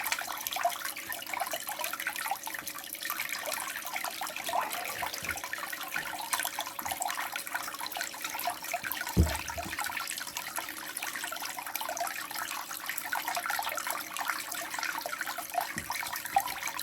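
Water running and swirling in a blue bowl gold concentrator, a steady splashing trickle, with one dull knock about nine seconds in.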